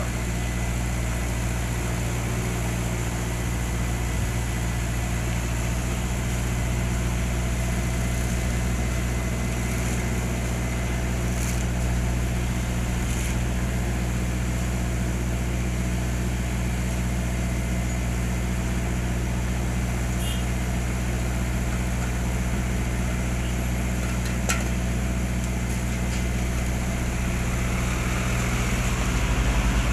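An asphalt paver's diesel engine runs steadily with a low, even drone, with a few faint clicks over it. It grows slightly louder near the end.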